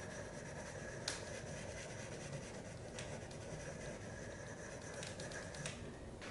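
Faint scratchy rubbing of a wax crayon being scribbled back and forth on paper, with a few light clicks.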